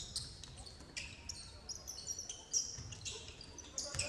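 Basketball game court sound: sneakers squeaking in short, high-pitched chirps on the court floor, with the thud of the ball being dribbled.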